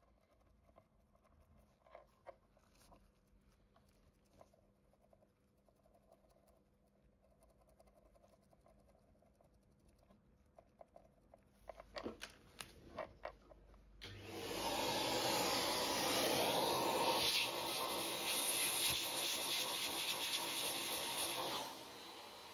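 Short brush bristles scrubbing faintly at an AirPod's speaker mesh, followed by a few sharp clicks as the earbud is handled and set down. Then a small vacuum runs loudly for about seven seconds, hoovering the loosened dirt out of the mesh, and cuts off near the end.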